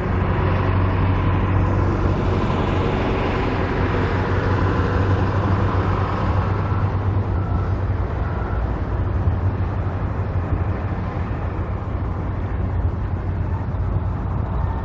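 A vehicle engine running steadily with a low hum. Two short reversing-alarm beeps sound about halfway through.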